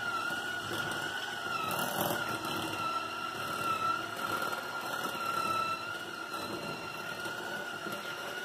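Oreck electric hand mixer running, its motor giving a steady high whine that wavers slightly in pitch as the beaters cream cream cheese and powdered sugar in a glass bowl.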